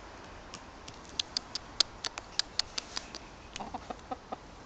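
Domestic chickens clucking: a run of short, sharp ticks, then a quick string of short, low clucks near the end.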